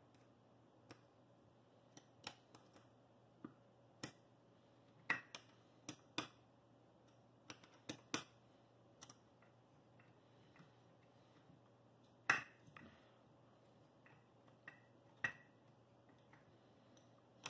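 Irregular small sharp clicks and taps of a steel T-handle hex key working the set screws of a telescope mount's worm-gear housing, about twenty in all, the loudest about twelve seconds in, over a faint steady hum.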